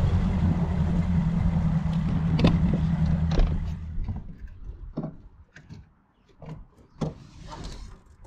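Bass boat outboard motor running at low speed with a steady hum, the boat just off plane; the engine sound dies away about four seconds in. A few scattered knocks on the boat's deck follow.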